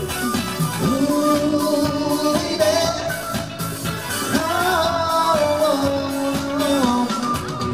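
Live pop music through a concert sound system: a singing voice with long held notes over a regular drum beat.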